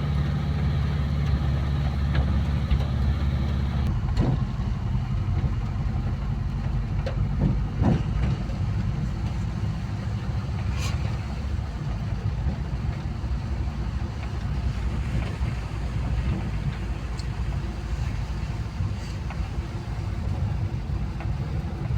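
Volkswagen Kombi van's engine running as it drives, a steady low drone. About four seconds in, the steady engine tones give way to a rougher rumble with a few light knocks.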